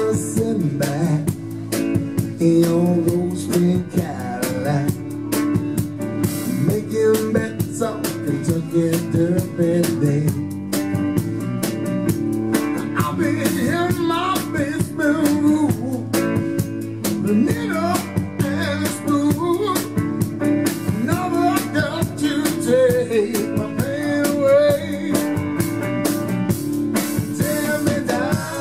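Live blues-rock band playing an instrumental break: an electric guitar plays a lead line with bent notes over electric bass and drums.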